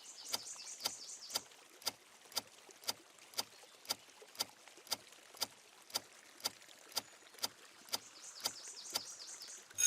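Ticking timer sound effect: a sharp, even tick twice a second, counting down the time to find the odd one out.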